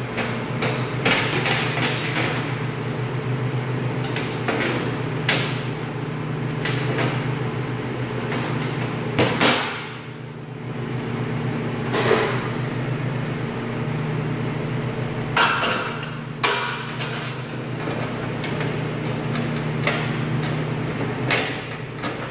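Scattered metal clanks and knocks as parts of a meat band saw, its stainless steel table and blade guide, are handled and fitted into place, the loudest about nine seconds in, over a steady low hum.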